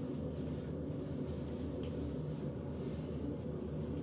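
Fingers rubbing and scratching at a plastic AirPods charging case: soft, scratchy handling noises a few times a second over a steady low hum.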